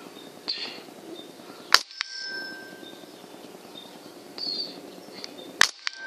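Two shots from a .22 PCP air rifle, about four seconds apart. After the first, the pellet strikes a small metal bell target, which rings with a clear tone for about a second; the second shot comes near the end.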